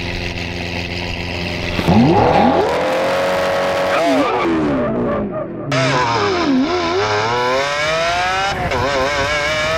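Lamborghini Aventador's V12 idling, then revving hard about two seconds in and accelerating through the gears. The pitch climbs and drops back with each of several upshifts.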